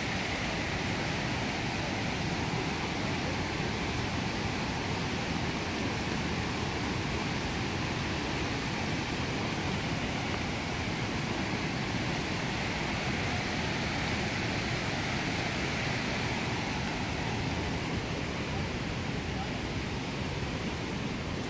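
Floodwater of a swollen river rushing and churning over its banks and a weir: a steady, even rushing noise.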